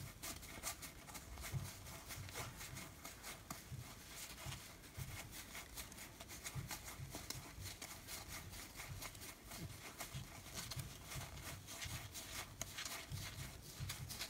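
Faint, quick clicking and rustling of playing cards being slid one at a time from one hand to the other as they are counted.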